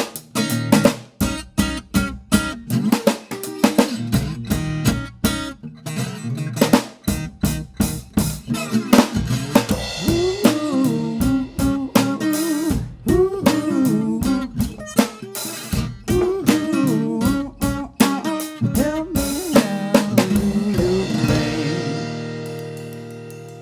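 Band playing the instrumental close of a song: a drum kit with sharp snare hits and guitar lines. It ends on a final chord that rings on and fades near the end.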